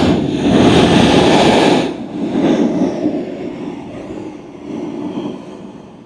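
Sea blowhole blasting: a loud rush of air and sea spray forced up through the hole in the rock. It drops off about two seconds in and fades away, with a few smaller surges.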